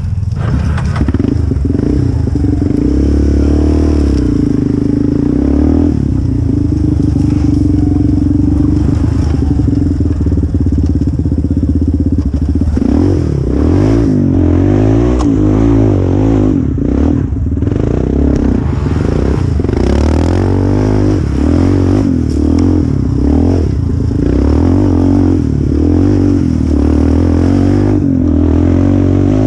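Yamaha Raptor quad's single-cylinder engine running under throttle on a rough trail. The engine note is held fairly steady at first, then revs up and down rapidly from about halfway through, with the machine clattering over bumps.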